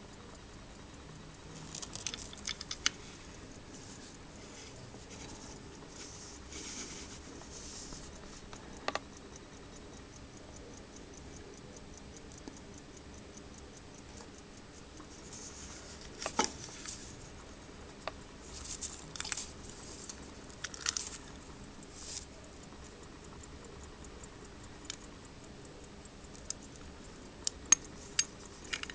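Antique Waltham pocket watch movement ticking steadily and faintly, still running. Several sharp clicks and brief rustles from the watch case being handled interrupt it, the loudest near the end.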